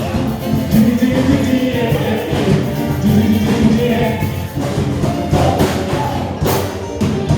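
Music with several voices singing together like a choir.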